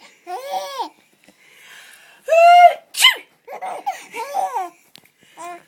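A 12-week-old baby giggling, then a person's fake 'ah-choo' sneeze about halfway through, a long 'ah' ending in a sharp 'choo', followed by a run of short bursts of baby laughter.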